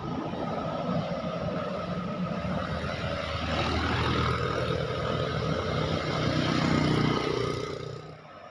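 A heavy road vehicle passing close by, its engine and tyre noise building to a peak about seven seconds in, then dropping away sharply near the end.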